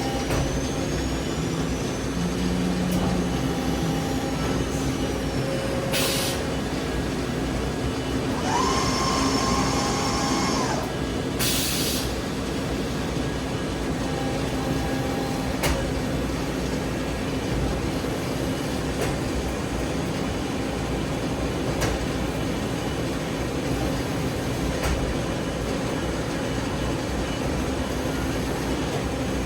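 CNC vertical machining center running, a steady mechanical hum with a few short hissing bursts and a brief whine about nine seconds in.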